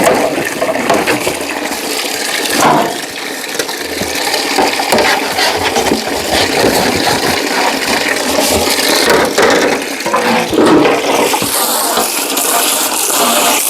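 Water running and splashing loudly over refrigerator parts as they are washed, with scattered clicks and knocks as the parts are handled.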